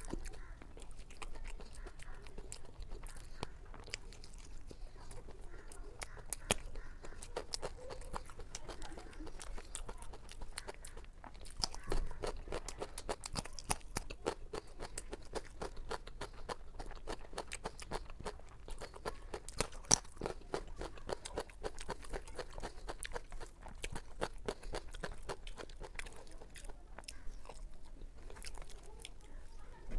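Close-miked mouth sounds of a person eating: crisp crunches from biting fried eggplant slices, with chewing and many small wet clicks. One sharp click about two-thirds of the way through stands out.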